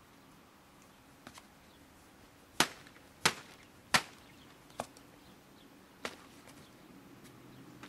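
Sharp slaps of a foam pool noodle being smacked down: three loud ones about two-thirds of a second apart, with fainter ones before and after.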